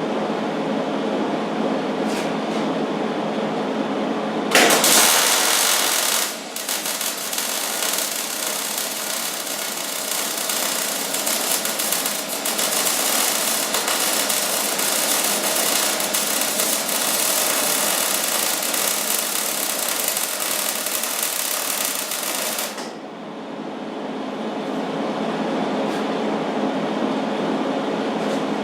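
Millermatic 90 wire-feed welder laying a patch bead on a snowblower impeller housing: a steady hum, then about four seconds in the arc strikes and crackles and sizzles for about eighteen seconds before stopping, leaving the hum.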